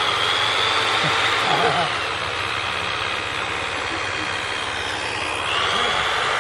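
Motor of a homemade lure-coursing machine running steadily with a high whine. About five seconds in the whine dips in pitch and climbs back as the motor slows and speeds up again.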